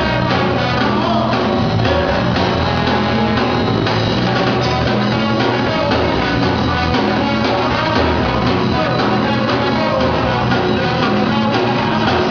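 Live band playing loud, with a horn section of trumpets and saxophone.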